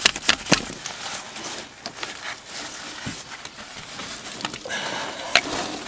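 Scattered clicks and light knocks of parts being handled as an Isuzu Trooper's locking hub and axle clip are put back together, with a sharper click a little over five seconds in.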